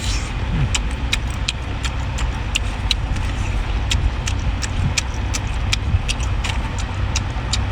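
Steady low motor rumble with irregular sharp clicks and taps over it, about two a second.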